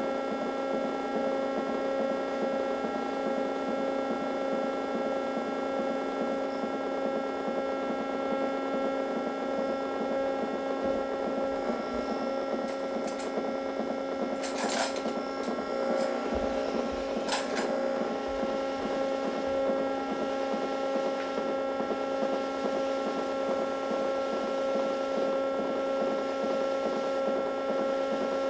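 Steady electronic drone of several held tones from a live setup of circuit boards and small amplifiers. A few brief crackles come in about halfway through.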